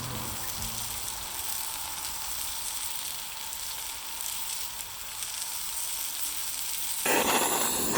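Food sizzling in a hot grill pan, a steady frying hiss that swells suddenly louder about seven seconds in, as when more food goes into the pan.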